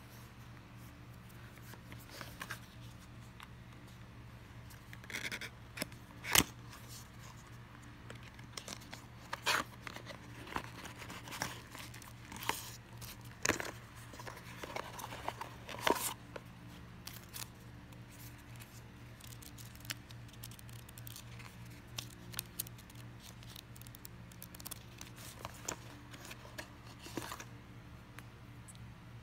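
Unboxing: a cardboard retail box and its packing being handled and opened, with scattered rustles and sharp clicks, the loudest about six seconds in, over a steady low hum.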